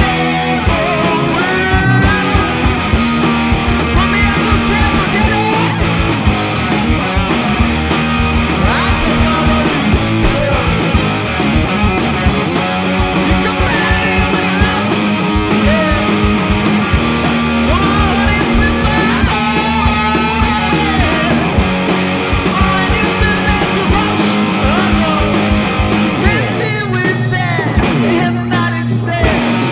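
Rock music: a band playing with electric guitar, a steady low bass line and a driving drum beat.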